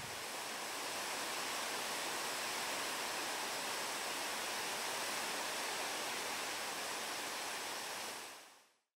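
Steady rushing of river water, fading out near the end.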